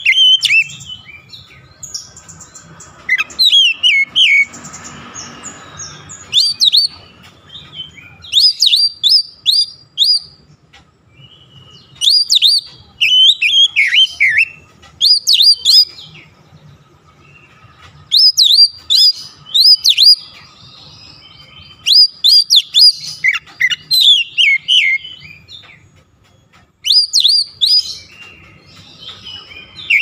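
Oriental magpie-robin singing in full voice: loud phrases of sharp, quick whistled notes that slide up and down, each phrase a second or two long, separated by short pauses.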